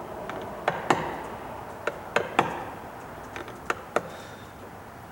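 About eight sharp, irregularly spaced clicks and taps of a knife point being dug into a wooden door edge to carve a rounded corner in a recess.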